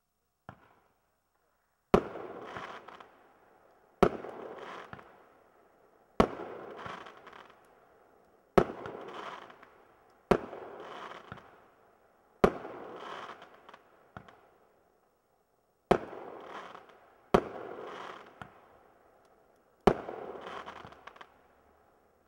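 Cutting Edge Katana aerial firework firing a string of shots, a small pop and then nine loud sharp bangs every two to three seconds. Each bang is followed by a noisy tail that dies away over a second or two.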